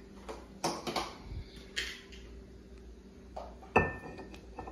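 Kitchen dishes and utensils clattering: several light knocks and clinks, then one sharp, ringing clink near the end.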